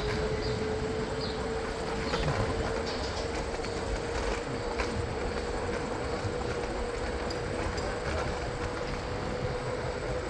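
Riding noise from a bicycle-type vehicle rolling along a city street: tyres rumbling over the asphalt, with a steady thin motor whine that rises slightly in pitch.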